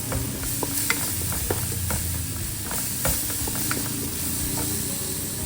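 Whole spices and crushed green chili sizzling in butter and olive oil in a cooking vessel, stirred with a spoon that clicks and scrapes against the pot at irregular moments, over a low steady hum.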